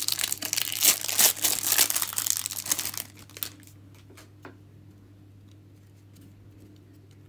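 Plastic wrapper of a Chronicles soccer trading card pack crinkling and tearing as it is ripped open by hand, for about three seconds. A few faint taps follow as the card stack is handled.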